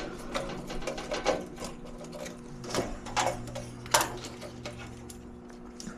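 Scattered light clicks and taps of hands handling furnace wiring and control-board parts, over a low steady hum.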